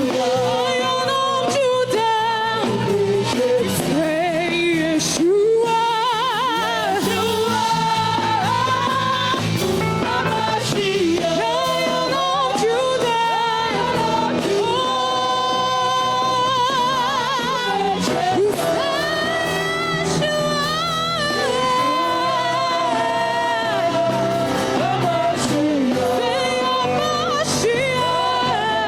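Live church worship music: a sung melody with wavering held notes over steady band accompaniment.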